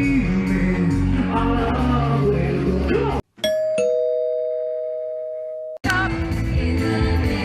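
Live band music with a singer, amplified through a stage PA, cuts off abruptly about three seconds in. A two-note ding-dong chime, like a doorbell, rings out and slowly decays, a higher note followed by a lower one. Near the end, live band music with singing comes back in abruptly.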